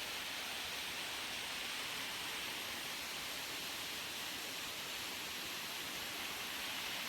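Steady, unbroken rush of a tiered waterfall cascading.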